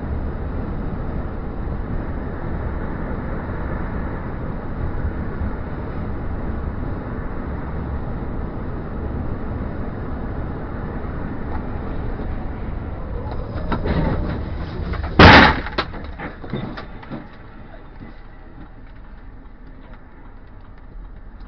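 Steady tyre and road noise inside a car driving at motorway speed, then about fifteen seconds in a single loud crash bang followed by a few lighter knocks as debris scatters across the road. Afterwards the road noise drops as the car slows almost to a stop.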